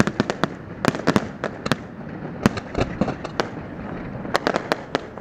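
Fireworks exploding in a rapid, irregular series of sharp bangs and cracks, coming in clusters every second or so over a steady background hiss.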